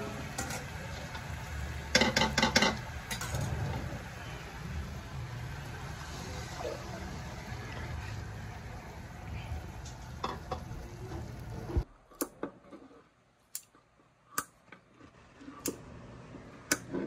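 Pork belly sizzling in a soy-sauce glaze in a wok, with a metal spatula scraping and clanking against the pan in a quick cluster about two seconds in. After a sudden drop in level well past the middle, a few sharp taps of utensils on a cutting board.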